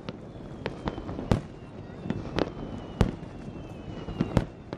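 Fireworks display bursting: about eight sharp bangs at irregular intervals, the loudest about a second and a half in. They include fireworks set off on the sea surface.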